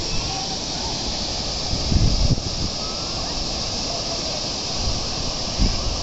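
Steady rushing of a waterfall. Wind buffets the microphone with low rumbles about two seconds in and again near the end.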